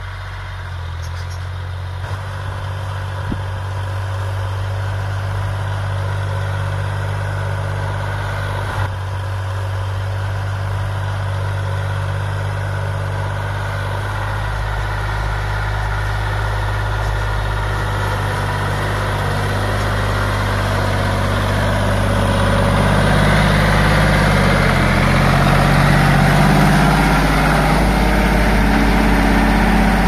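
John Deere 5103 tractor's three-cylinder diesel engine running steadily under load while pulling a rotavator through a field, getting gradually louder as the tractor comes closer.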